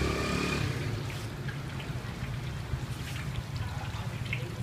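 Strips of dough frying in hot oil in a wok: a steady sizzle with scattered small pops and crackles, over a steady low hum.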